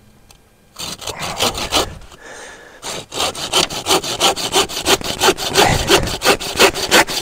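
Hand saw cutting through a piece of wood: a few strokes about a second in, a short pause, then a steady run of back-and-forth strokes, about three a second.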